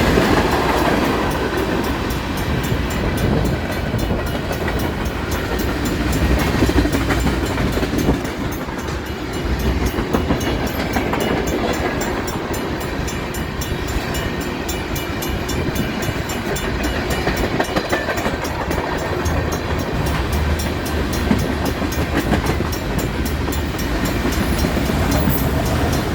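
Union Pacific freight train rolling past, a steady noise of steel wheels on rail with no break for the whole stretch.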